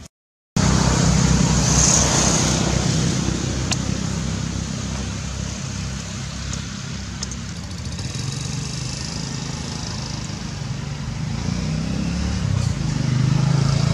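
A steady low motor hum with hiss over it, starting abruptly after a brief silence about half a second in and swelling slightly near the end.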